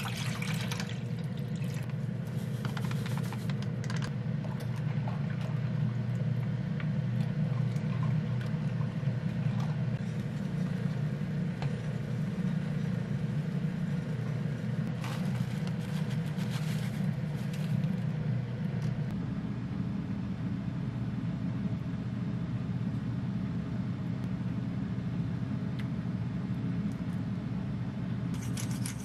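Water poured from a jug into a frying pan, then a wooden spoon stirring and scraping thick soup in the pan, over a steady low hum that is the loudest sound throughout.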